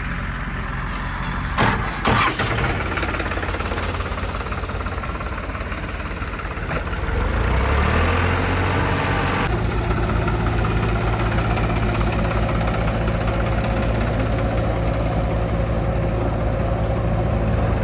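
Heavy diesel engine running. There are a couple of sharp knocks about two seconds in. About seven seconds in the engine revs up, and from then on it runs at a steady, louder note.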